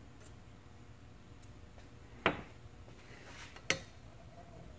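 Two sharp metallic clicks about a second and a half apart from a lever-type valve spring compressor and valve spring retainer on a Subaru EJ25 aluminium cylinder head, as a valve is being installed.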